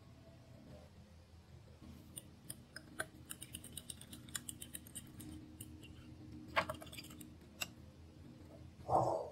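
Metal spoon stirring and mashing a thick herb dressing in a small glass bowl, with irregular clinks and clicks of the spoon against the glass. A brief dull thump comes near the end.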